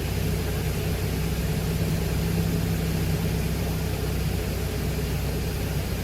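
Steady drone of a Glastar light aircraft's piston engine under a constant hiss of airflow, heard inside the cockpit while the plane is held in slow flight with the stick full back.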